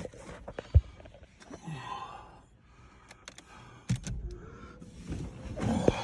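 Power rear liftgate of a 2015 GMC Yukon XL being tried out with a newly fitted powered lift arm: a sharp knock about a second in, another knock near four seconds, then the lift arm's electric motor running with a steady whine.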